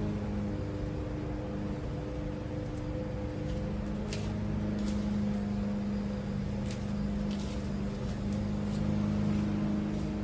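Steady low mechanical hum with a few sharp clicks and taps, from tools and plastic fasteners as an interior trim panel is worked loose.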